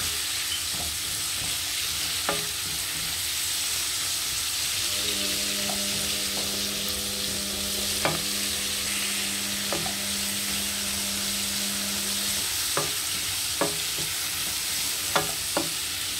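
Sliced onion, celery and red bell pepper sizzling in a frying pan as a wooden spoon stirs them, with scattered clicks of the spoon against the pan. A low steady hum comes in about five seconds in and stops about seven seconds later.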